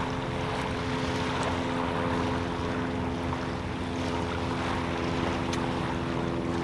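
A motorboat engine droning at one steady pitch out on the water, with wind rumbling on the microphone.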